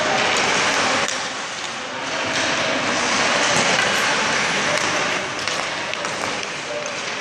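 Ice hockey skates scraping on the ice, with sticks clicking against pucks again and again during stickhandling drills.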